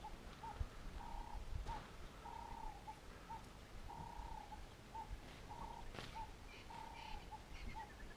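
Faint animal call at one steady pitch, repeated over and over: a held note followed by one or two short notes, about every second and a half. A few soft clicks come in between.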